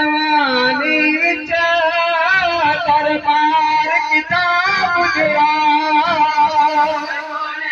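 A man singing a noha (a Shia elegy) into a microphone, one long drawn-out line with wavering, ornamented held notes and no break for breath.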